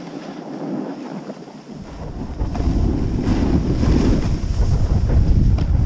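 Wind buffeting the microphone of a camera worn by a skier, over the hiss of skis sliding on packed snow. The low wind rumble grows much louder about two seconds in and stays up.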